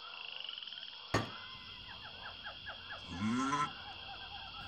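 Jungle ambience sound effects: a steady high insect drone, a single sharp click about a second in, a quick run of short chirps, then a short pitched animal call a little after three seconds.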